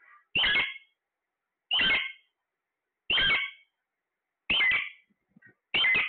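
Caged Alexandrine parakeet giving loud, repeated calls, five in a row about every second and a half, each about half a second long. Faint chirps come between them near the end.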